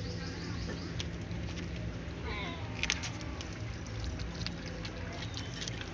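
A tabby cat chewing raw chicken: irregular wet clicks and smacks of teeth and tongue on the meat, sharpest about three seconds in.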